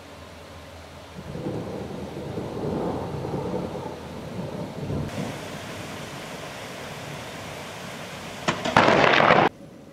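Thunder rumbling low for several seconds, starting about a second in, with a steady hiss of rain joining about five seconds in. Near the end a loud burst of noise, the loudest sound, lasts about a second and cuts off suddenly.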